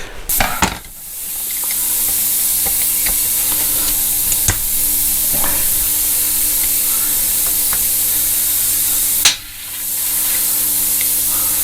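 Steady spray hiss, as from an aerosol or an air line, working on an opened motorcycle carburettor. It breaks off with a click about nine seconds in and starts again a moment later, with a faint low hum underneath.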